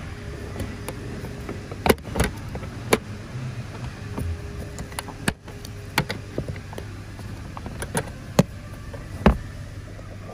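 Scattered sharp clicks and knocks of plastic interior trim and clips being handled and popped under a BMW i3's rear seat, over a steady low hum.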